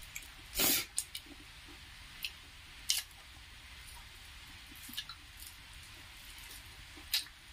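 Close-up eating sounds of people eating rice and chicken gravy by hand: sparse wet clicks and squishes of fingers mixing the food and lip smacks from chewing. A short, louder noisy burst comes about half a second in.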